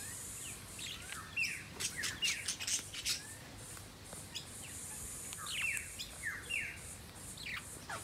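Parrots chirping: scattered short, quick calls that rise and fall, over a faint high hiss that comes and goes.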